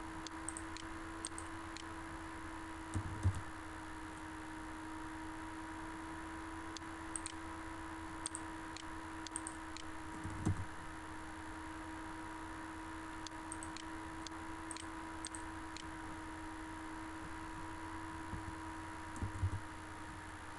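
Scattered clicks of a computer mouse and keyboard keys in small clusters, over a steady electrical hum and hiss, with a few soft low thumps.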